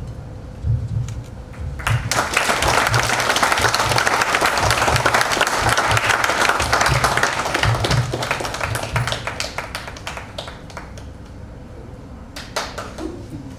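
Theatre audience applauding: clapping breaks out about two seconds in, stays full for several seconds, then dies away to a few scattered claps near the end.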